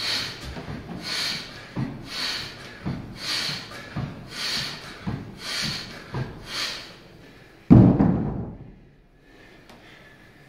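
Forceful breaths pushed out in time with barbell upright-row reps, about one a second, with soft knocks from the lift. About three quarters of the way through, the loaded barbell lands on the wooden floor with a loud thud, followed by quieter breathing.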